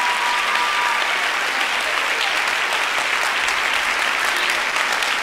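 Large audience applauding steadily, with a few voices calling out near the start.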